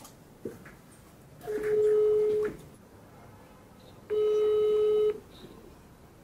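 Smartphone ringback tone on an outgoing call: two one-second beeps of a steady low tone, about two and a half seconds apart, while the call rings unanswered.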